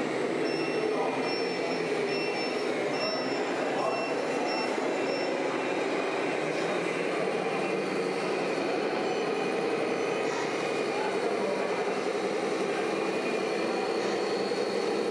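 Radio-controlled model trucks running steadily, with a repeating warning beep during the first few seconds, over background voices.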